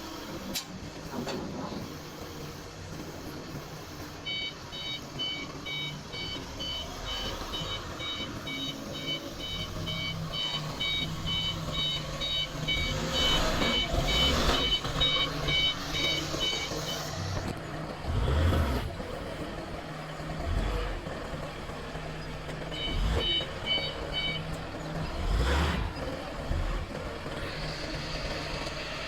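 Forklift engine running with its reversing alarm beeping, about two beeps a second, for stretches of several seconds. A few heavy thumps come in between.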